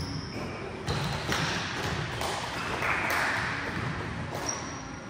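Indoor volleyball game in play: the ball being struck and bouncing on the hard court several times over a steady background of gym noise.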